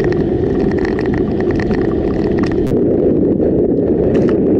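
Steady road and engine noise inside a moving car at highway speed, a dense low rumble, with scattered light ticks and clicks over it.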